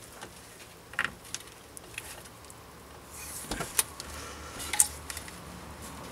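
A plastic zip tie being handled around a rubber steering rack boot: rustling with a few sharp plastic clicks, the loudest about three quarters of the way through.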